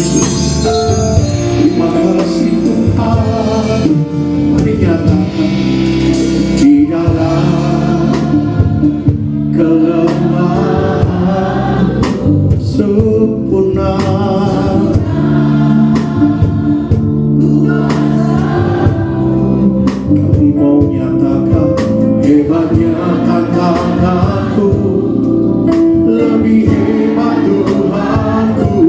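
Christian worship song: voices singing a melody over steady instrumental accompaniment.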